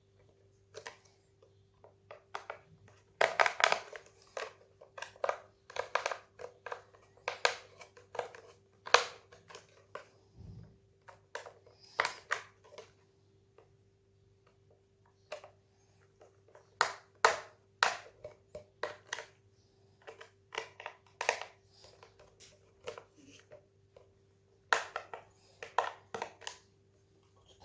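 Plastic parts of a Dyson V6 cordless vacuum being handled and fitted back together by hand: irregular clicks, knocks and rattles in clusters, with short pauses between.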